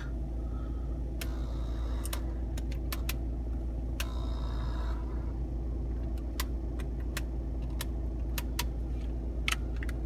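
Steady low hum and rumble inside a car cabin, with scattered light clicks and taps of things being handled.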